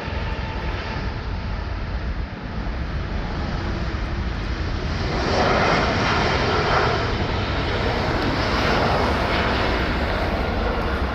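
Boeing 787 jet engines at takeoff thrust, a steady roar with deep rumble that grows louder about five seconds in.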